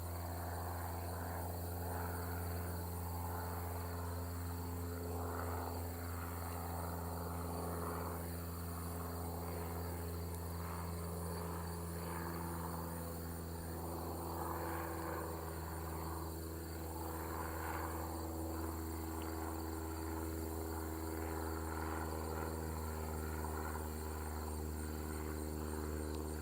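Cessna 172's propeller engine droning from a distance, its pitch shifting slowly, with crickets chirping steadily at high pitch.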